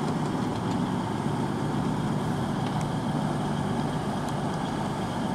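Class 221 Super Voyager diesel-electric multiple unit's underfloor diesel engines running steadily, a constant low engine hum with no change in pitch.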